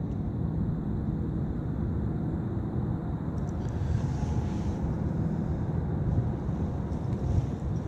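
Steady low rumble of outdoor background noise, with no distinct event.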